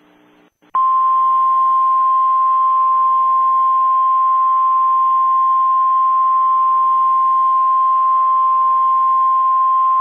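Emergency Alert System attention tone: one loud, steady, high beep-like tone that starts under a second in and holds without a break, over a faint hiss.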